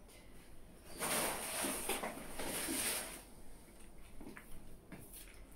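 Rustling as grocery items are handled, starting about a second in and lasting about two seconds, then a couple of faint clicks.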